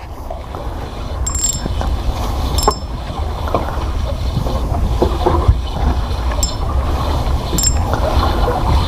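A spinning reel being cranked against a bent rod while fighting a hooked fish, with a few short high-pitched zips of the drag giving line. Under it runs a steady low rumble.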